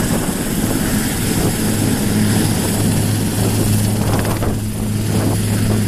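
Sikorsky S-61N helicopter running on the ground with its rotors turning as it taxies: a steady low drone of rotors and turboshaft engines, with a steady high turbine whine over it.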